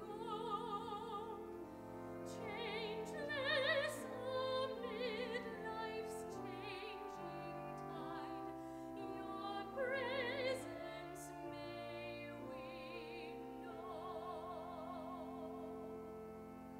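Soprano voice singing a sacred solo with wide vibrato, over held notes of a pipe organ accompaniment.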